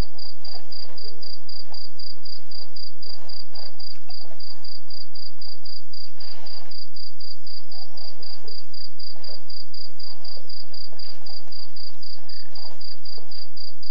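A cricket chirping steadily in rapid, evenly spaced high-pitched pulses, about four or five a second, with faint irregular shuffling noises underneath.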